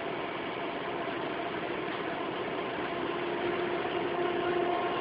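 Diesel locomotive running along the line, heard from inside its cab: a steady engine and running noise, with a humming tone that grows stronger about three seconds in.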